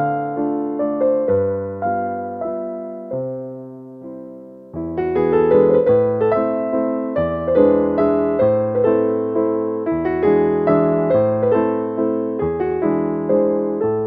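Background piano music: a melody of separate struck notes, each dying away. The playing thins and fades about three to four seconds in, then comes back fuller about a second later.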